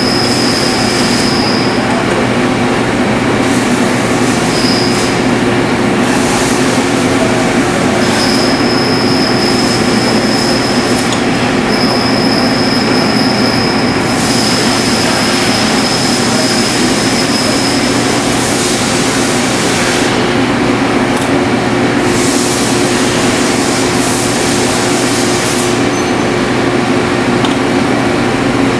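Metal lathe running while a left-hand tool faces the end of a part held in the chuck, a steady machine hum with a high, thin squeal from the cut that comes and goes several times.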